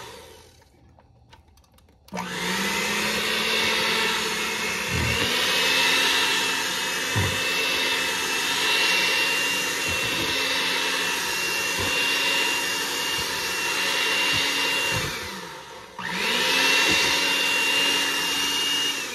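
Small electric hand mixer beating soft boiled sweet potatoes smooth. The motor starts about two seconds in, runs steadily with occasional knocks, stops briefly near the end, then restarts and winds down.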